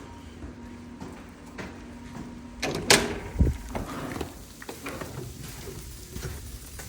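A low hum stops and a door clunks loudly about three seconds in, followed by irregular crunching steps on snow.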